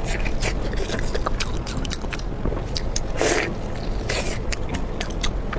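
A person chewing and biting food close to the microphone: a run of short wet smacking clicks, with two louder crunchy bites about three and four seconds in.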